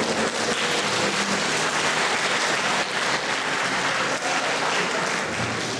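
Audience clapping steadily, a dense round of applause with no break.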